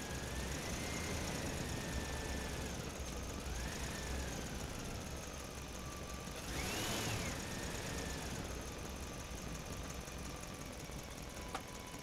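An engine running, its pitch rising and falling several times as it revs, with a louder swell about seven seconds in, over a steady low rumble; a single click near the end.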